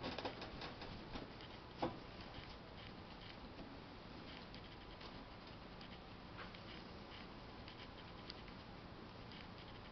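Soft rustling and scattered small clicks from a pet rabbit moving on a hay-strewn towel and being stroked, busiest in the first couple of seconds, with one sharper click about two seconds in.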